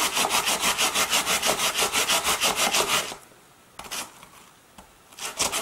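Peeled raw potato rubbed back and forth on a plastic grater, a rasping stroke about seven times a second. The grating pauses after about three seconds and starts again near the end.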